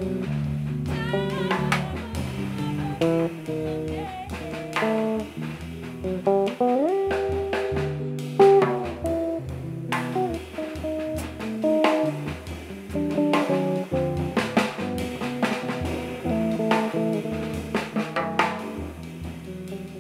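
Multi-string electric bass playing a melodic line of plucked notes, with a slide up in pitch about seven seconds in, over a drum kit keeping time.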